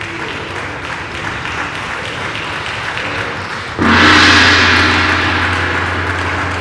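Applause, then about four seconds in a large hanging gong is struck once with a mallet. It rings on with a deep hum and a bright shimmer that slowly fade over the continuing applause.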